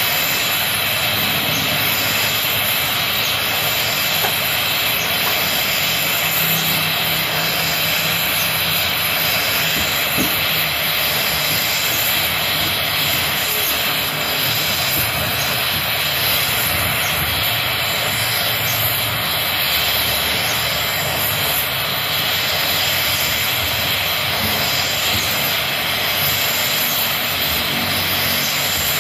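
Gas torch flame running with a steady hiss, held on the rusted impeller hub of a water pump to heat and free the seized impeller.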